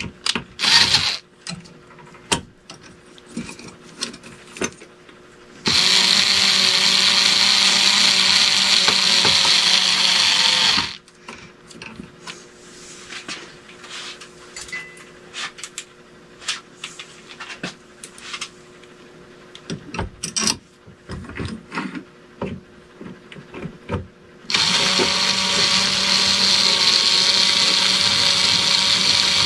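Power drill running in two long steady runs of about five seconds each, about six seconds in and again near the end, driving screws to fasten a ceiling fan's mounting bracket. Small clicks and handling knocks come between the runs.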